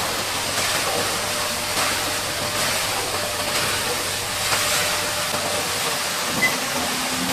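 High-pressure water jet spraying and splashing against a bulldozer during washing, a steady hiss with a low machine hum underneath.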